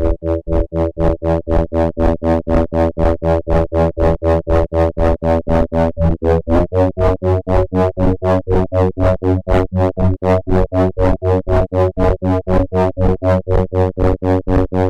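Granular synthesizer built in Pure Data playing a pulsing drone: a low, chord-like stack of tones chopped into rapid, even pulses. About six and a half seconds in the pitches shift to a new, slightly higher set.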